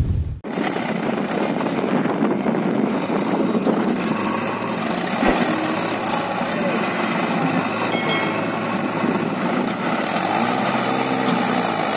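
Diesel engines of a Mahindra 575 DI four-cylinder tractor and a JCB backhoe loader running steadily at low speed. A low boom cuts off about half a second in.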